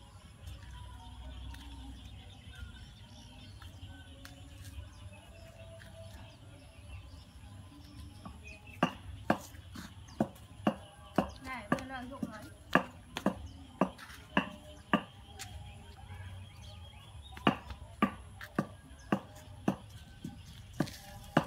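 Faint background voices, then from about nine seconds in a run of sharp, loud knocks or claps, roughly two a second.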